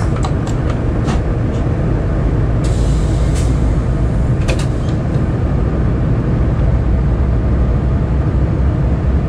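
Diesel locomotive engine running steadily with a low rumble, with a few sharp clicks and a brief hiss about three seconds in.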